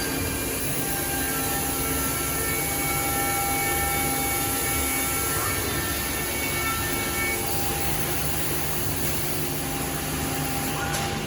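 Weeke BHC 750 CNC machining centre running: a steady mechanical hum and high hiss, with several thin whining tones at different pitches that come and go.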